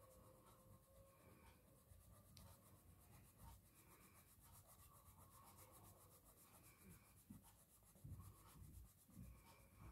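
Faint scratching of a crayon rubbed back and forth on paper while a circle is coloured in blue, with a few soft bumps near the end.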